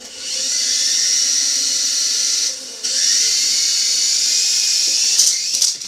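Small toy quadcopter's propeller motors whining at high pitch as it flies. The whine drops briefly about two and a half seconds in, spins back up with a rising pitch, and breaks into a few clicks near the end.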